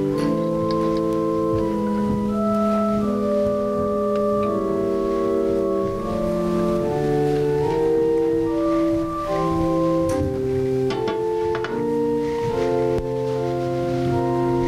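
Organ playing slow, held chords that change every second or two, as quiet background music for Communion.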